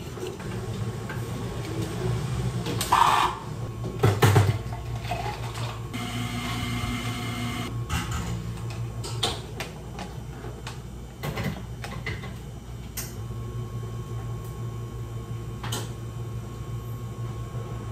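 Cafe counter work sounds over a steady low machine hum: knocks and clinks of cups and equipment, two sharp knocks a few seconds in, and a short mechanical whir lasting about two seconds near the middle.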